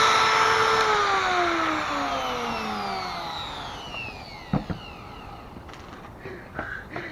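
Compact handheld trim router spinning down after being switched off, its motor whine falling steadily in pitch and fading over about three seconds. About halfway through there are two short knocks.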